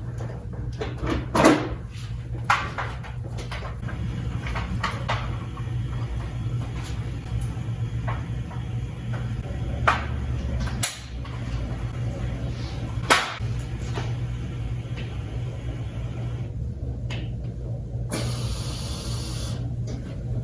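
Scattered knocks and clicks of pressure-washer hose fittings being handled while the high-pressure hose and gun are connected, over a steady low hum. A short hiss about two seconds long comes near the end.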